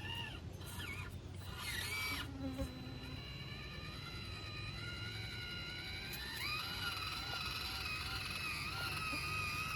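Small electric motor and gearbox of a 1/18-scale RC rock crawler whining, its pitch dipping and rising with the throttle, climbing again about six seconds in. A short scraping noise comes about a second in, likely the tyres on rock.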